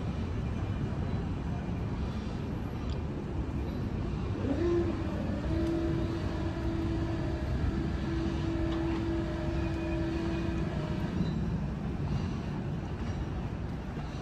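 Steady low rumble of distant city and harbour traffic. About four and a half seconds in, a mechanical whine rises and then holds one pitch for about six seconds.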